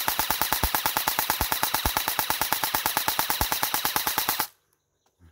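3D-printed airsoft AR-15 electric gun with a version 2 gearbox firing on full auto: a rapid, even stream of shots from the motor and gearbox cycling. It cuts off suddenly about four and a half seconds in.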